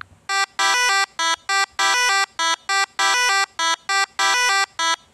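Duck quacking: a quick, loud series of about a dozen short quacks, some in close pairs.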